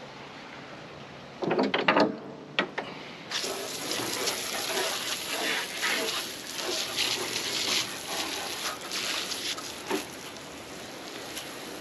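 A few handling knocks and rustles, then about three seconds in a jet of water starts spraying and splattering steadily, rinsing lock mud off the line weight and the deck.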